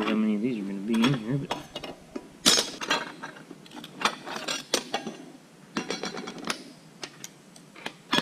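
Metal clinks and scrapes from a long pick working steel plates and friction discs loose from a John Deere 9320T powershift clutch pack, a run of separate sharp clinks from about two seconds in. A short wavering hum from the mechanic comes first.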